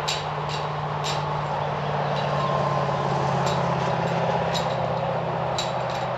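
Kioti CK2610 compact tractor's diesel engine running steadily, with a few light clicks over it.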